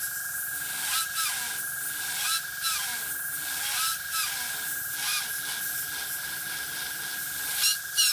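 Airbrush hissing in short spurts as the trigger is worked, over a steady high whine.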